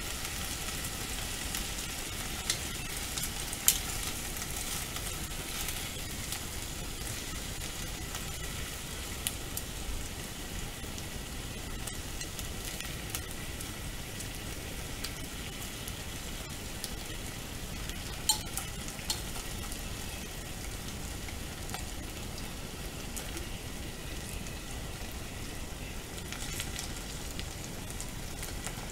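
Potato and carrot chunks sizzling in oil in a pot, stirred with wooden chopsticks, with a few sharp clicks of the chopsticks against the pot.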